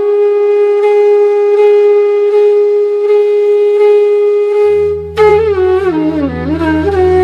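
Music: a wind instrument holds one long note for about five seconds, then breaks into a bending, ornamented melody over a low steady drone.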